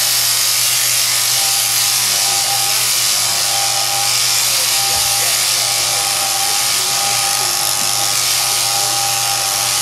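Sheep shearing handpiece, driven through a jointed down tube from an overhead machine, running steadily as its comb and cutter shear belly wool. It makes an even whine with a low hum.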